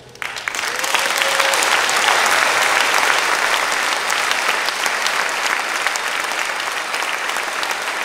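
A large audience applauding in a hall. The clapping breaks out right at the start and keeps up steadily.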